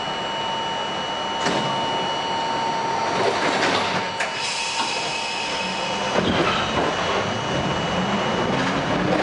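R42 subway car's doors sliding shut with a knock in the first few seconds, then the train pulling away, its motor whine rising steadily in pitch as it gathers speed.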